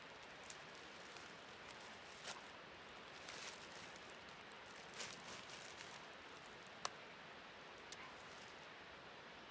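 Faint steady rush of a waterfall, with scattered light rustles and several sharp clicks, the loudest click near the middle.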